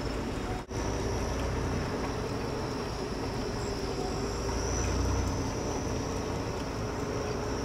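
Steady outdoor ambience: a low rumble of wind on the microphone, with a thin, steady high drone of crickets or other insects. The sound cuts out for a moment under a second in.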